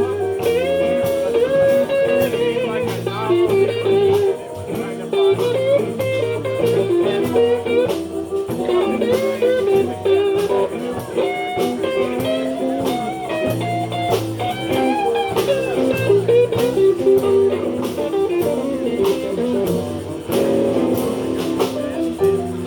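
A live blues band playing an instrumental passage: a lead line with bent notes over bass and a steady drum beat.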